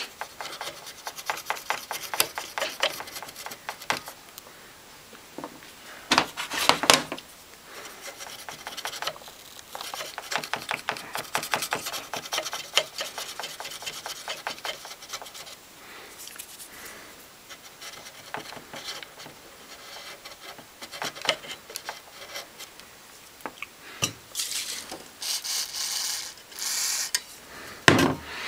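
Cotton bud scrubbing at the carbon-fouled contacts inside an opened Sunbeam hand mixer, many short scratchy rubbing strokes, cleaning off carbon left by sparking. Two louder hisses stand out, a short one about a quarter of the way in and a longer one near the end.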